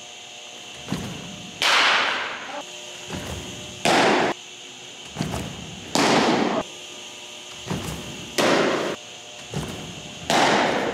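Pitched baseballs hitting with sharp, loud smacks, five times about two seconds apart, each trailing off in the echo of an indoor batting cage, with a softer knock shortly before each one.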